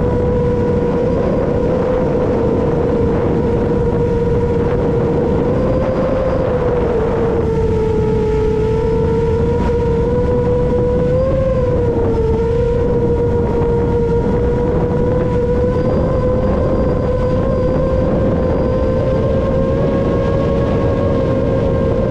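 7-inch FPV quadcopter's Emax Eco II motors and HQ tri-blade propellers whining in flight: one steady buzzing tone that dips and rises slightly with throttle, over a constant rushing noise.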